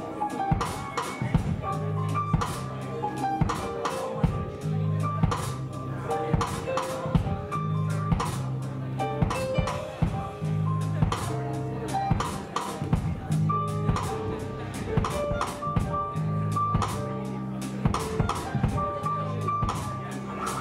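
Live trio of keyboard, electric bass and drum kit playing: the bass repeats a low riff under sustained keyboard notes, with steady drum hits.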